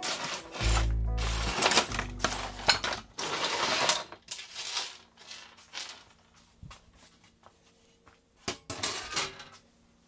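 Metal tools and scrap clinking and clattering on a steel workbench as they are pushed aside, busiest in the first few seconds, with a few sharper clanks later. Background music plays underneath.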